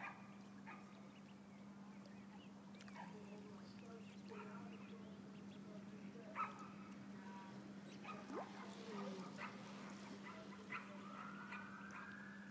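Ducklings peeping faintly in scattered short calls. A faint siren rises and falls near the end.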